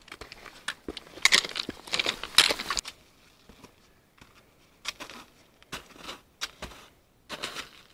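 Footsteps crunching in snow on a mountain path, a quick run of loud crunches over the first few seconds, then single, spaced steps.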